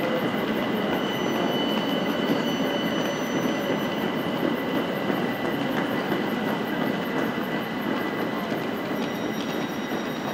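A train in the station, unseen, giving a steady rumble with thin, steady high-pitched whining tones over it; fainter higher tones come in a second in and again near the end.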